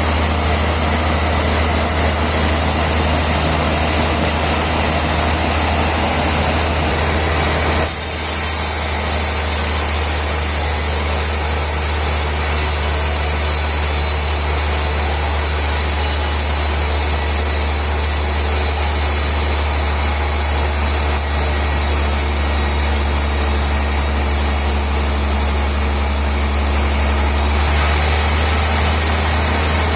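Sawmill machinery running steadily with a deep, even engine hum. About eight seconds in, a high hiss joins it and holds until it drops away near the end.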